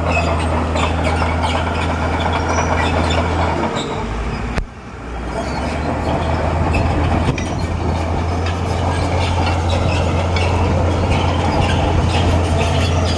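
Bulldozer's diesel engine running steadily under load, with the steel crawler tracks clanking and squealing. The sound drops away abruptly about four and a half seconds in and then builds back up.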